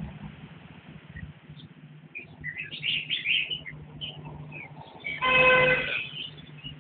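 Red-whiskered bulbuls chirping in short, quick notes, with a cluster of chirps about two to three seconds in. About five seconds in, a loud steady horn-like tone sounds for under a second, over a low steady hum.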